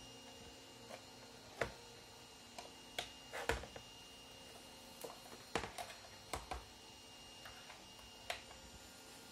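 Scattered clicks and knocks from hands handling a 3D-printed plastic enclosure and plugging a cable into its circuit boards: about seven sharp handling sounds spread through the stretch, over a faint steady high tone.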